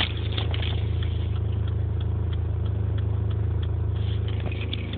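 2005 Dodge Neon idling with a horrible, steady low thrumming drone.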